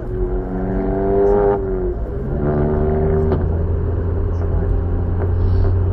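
Car engine revved twice, each rev held about a second or more with its pitch rising slightly before dropping back, then settling to a steady low idle.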